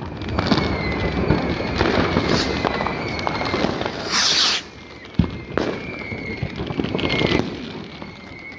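Fireworks and firecrackers going off: repeated sharp bangs and crackles, with a loud hissing rush about four seconds in.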